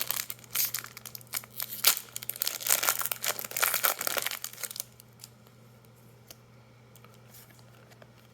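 Foil booster-pack wrapper being torn open and crinkled in the hands for about five seconds, then only faint, sparse clicks of cards being handled.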